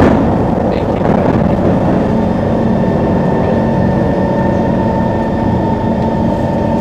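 Singapore MRT electric train running, heard from inside the carriage: a steady rumble of wheels on the rails, joined about two seconds in by a steady electric whine.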